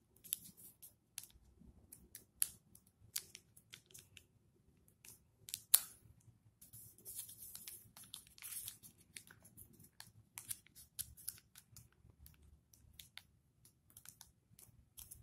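Origami paper being folded and creased by hand: an irregular run of small paper rustles, crinkles and sharp ticks, with one louder tick about six seconds in.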